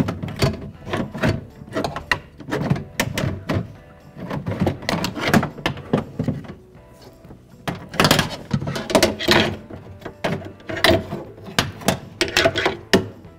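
Metal power window regulator, with its motor attached, knocking, rattling and scraping against the steel inner door panel as it is worked out of the door: a long string of irregular clanks and scrapes.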